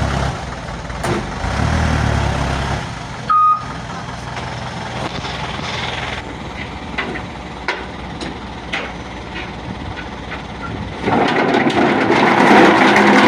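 Isuzu dump truck's diesel engine running, with one short high beep about three seconds in and a few knocks later; the sound grows louder about two seconds before the end.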